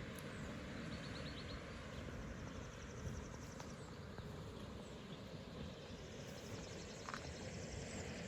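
Insects trilling in short, rapidly pulsed high-pitched bursts, three or so trains of about a second each, over a steady low outdoor rumble.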